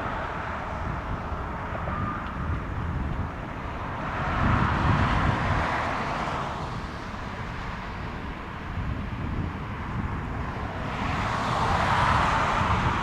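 Strong wind gusting on the microphone over the rumble of jet airliner engines at the airport, swelling twice, about four seconds in and again near the end.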